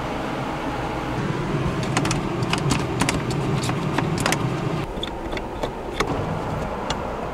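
Camper windows being opened by hand: a quick run of clicks and rattles from the window latches and crank, then a few single clicks, over a steady background hum.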